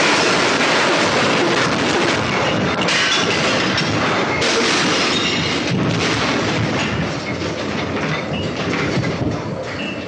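Earthquake shaking of a furnished room in a simulation: a continuous loud rumble and rattle, with contents clattering, knocking and crashing throughout.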